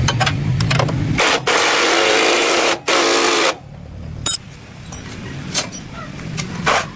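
A small 100cc motorcycle engine running with a low rumble, stopping about a second in. A loud rushing noise follows for about two seconds, then scattered clicks and taps.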